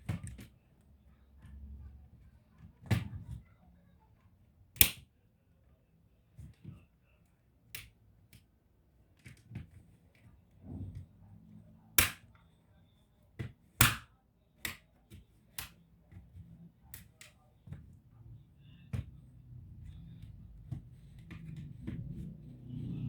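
Scattered sharp clicks and taps of small laptop parts, plastic and metal, being handled and set down during disassembly, coming at irregular intervals with a few much louder knocks among them.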